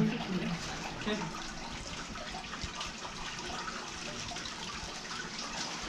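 Water running and splashing steadily into an aquarium sump as the tank's overflow drains down through the PVC pipes into the filter chamber.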